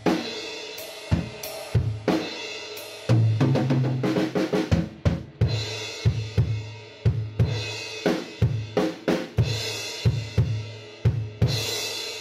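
Acoustic drum kit played with sticks: bass drum, snare and hi-hat in a steady beat with cymbal crashes, a quick run of drum strokes about three to five seconds in, and a final crash left ringing near the end.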